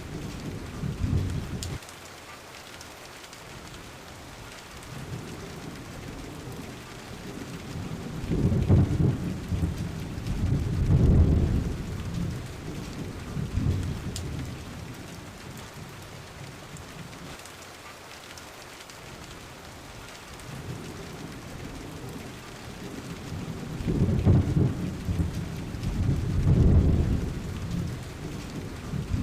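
Steady rain falling, with rolls of thunder rumbling low and swelling and fading every few seconds, strongest about 9 and 11 seconds in and again about 24 and 27 seconds in.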